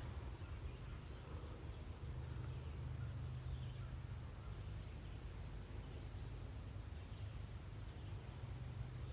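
Quiet outdoor ambience: a steady low rumble under a thin, steady high-pitched drone, with a few faint short chirps.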